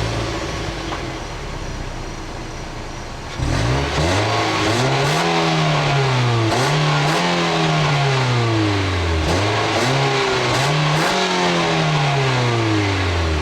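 A 2015 Nissan Versa S's 1.6-litre four-cylinder engine idling, then about three and a half seconds in revved up and let fall in about three slow swells, heard through its exhaust.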